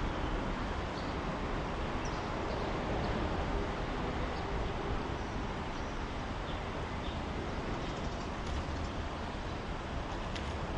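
Steady rumble of traffic on the elevated highway viaduct overhead, an even noisy hum that never breaks, with a few faint light ticks near the end.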